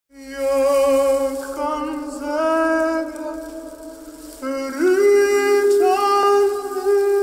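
Soundtrack music of long, wordless sung notes, wavering at first, then stepping and sliding up to new pitches, with a rising swoop about four and a half seconds in.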